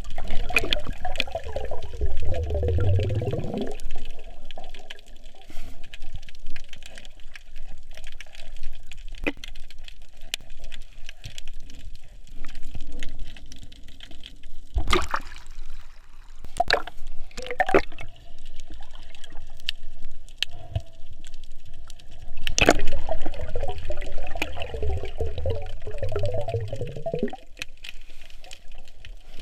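Seawater gurgling and bubbling while snorkeling, in two long bursts: one at the start and one about two thirds of the way through. Scattered sharp clicks and crackles come between the bursts.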